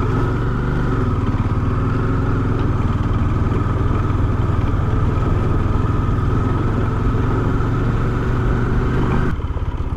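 Bajaj Dominar 400's single-cylinder engine running at a steady pace while the bike is ridden, heard from the rider's seat. The higher noise drops away near the end.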